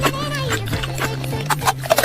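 Background music with a steady bass line under a wavering melody, with a few short clicks near the end.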